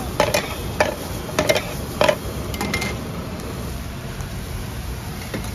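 A spatula knocking and scraping against a frying pan about six times in the first two seconds while onions and peppers are stir-fried. A steady hiss of frying continues after the knocks stop.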